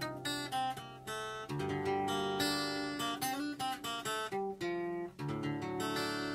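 Intro music: acoustic guitar being strummed and picked.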